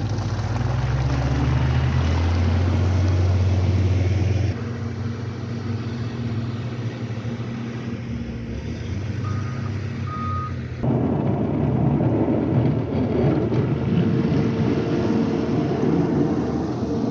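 Outdoor field audio cut together from separate shots. First a low, steady engine drone; then a quieter stretch with two short high beeps about a second apart; then rough, wind-like noise.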